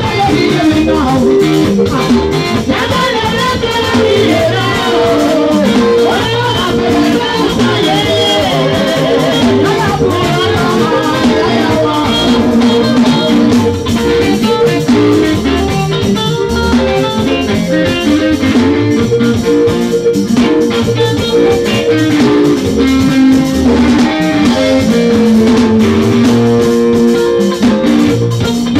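Live Edo band music: a woman singing lead into a microphone over a drum kit and a band, played loud through a PA.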